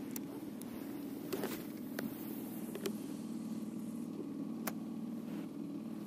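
Boat outboard motor running at a steady pitch, with a few light clicks over it.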